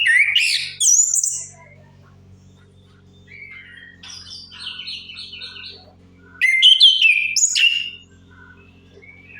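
Orange-headed thrush singing: loud, rapid strings of sliding whistled notes at the start and again about six and a half seconds in, with softer, varied twittering phrases between them, over a steady low hum.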